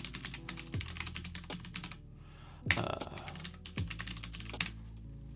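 Typing on a computer keyboard: two quick runs of keystrokes with a short pause about two seconds in, as a search query is entered.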